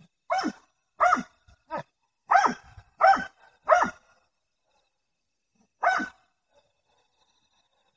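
Hound barking at a wild boar it is holding at bay: seven barks, six in quick succession and then one more after a pause, each sliding down in pitch.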